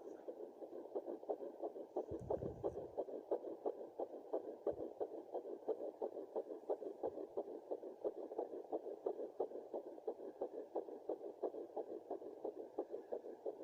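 Fetal heartbeat at 9 weeks and 2 days, heard as the whooshing pulses of a Doppler ultrasound: rapid and even, about three beats a second. A brief low rumble comes about two seconds in.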